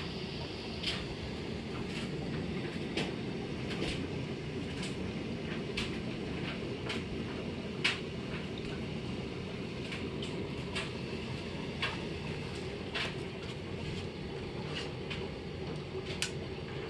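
Aquarium filter running: a steady low hum and water rush, with irregular sharp ticks about once or twice a second.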